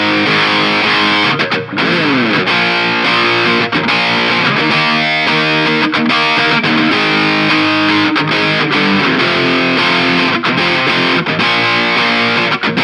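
Electric guitar played through a Mooer GE150 Pro multi-effects processor on a distorted patch, with a sliding drop in pitch about two seconds in.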